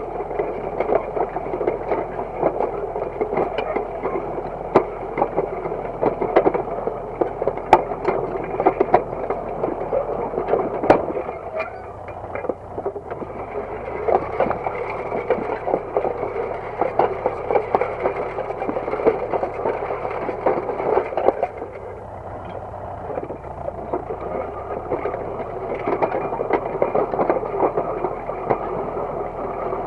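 Disc harrow working soil behind a UTB Universal DT445 tractor: a continuous rattle and scrape of clods and earth against the steel discs and frame, full of sharp knocks, over the tractor's diesel running. The noise eases briefly twice, a little before halfway and about three quarters of the way through.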